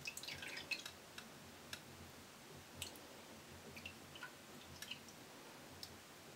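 Faint, scattered wet drips and small clicks as ginger bug, a fermented ginger starter, is tipped out of a glass jar into a pot of liquid. The sounds cluster in the first second, then come only now and then.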